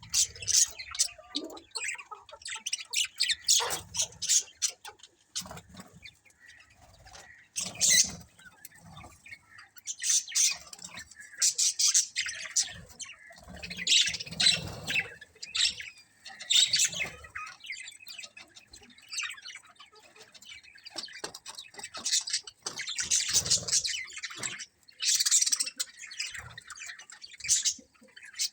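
A colony of budgerigars chattering and chirping, many birds at once, in bursts of rapid warbling calls with short lulls between.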